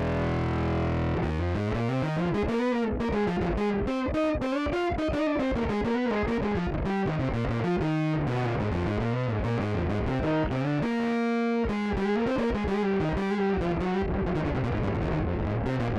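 Electric bass played through an MXR Poly Blue octave pedal. A held note opens, then a fast melodic line of short notes runs up and down, with one longer held note a little past the middle.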